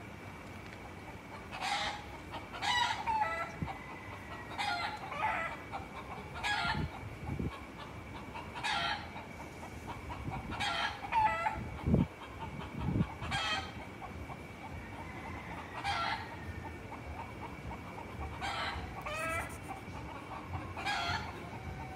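Roosters calling and clucking, short calls repeating every second or two, over a faint steady high tone. Two dull low thumps near the middle, the first the loudest sound.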